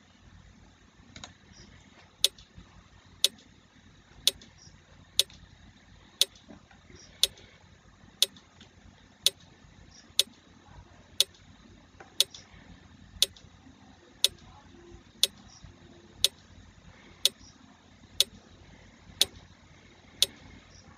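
Quiz countdown timer sound effect ticking like a clock, one sharp tick a second, starting about two seconds in.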